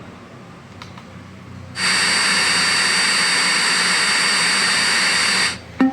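Bluetooth speaker in FM radio mode giving out loud, steady static hiss from an untuned station, starting about two seconds in and cutting off suddenly about four seconds later.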